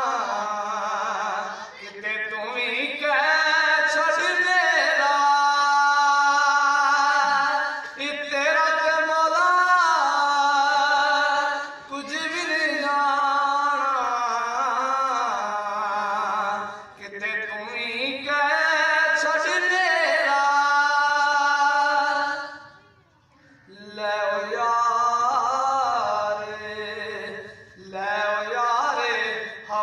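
A solo male voice singing unaccompanied into a microphone: long, melismatic held phrases with short breaks between lines and a longer pause about three-quarters of the way through.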